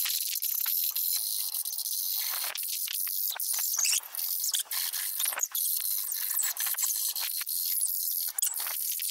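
A metal hand file rasping along a raw wooden hammer handle in repeated strokes, a dry hissing scrape as the handle is shaped.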